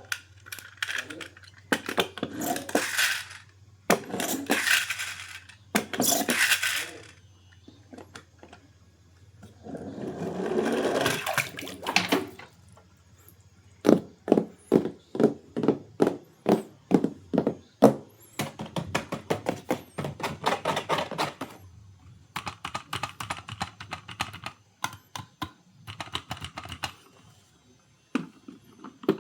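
Toy packaging being opened and handled: bursts of plastic and cardboard rustling and tearing, then a run of sharp clicks about three a second and denser clicking.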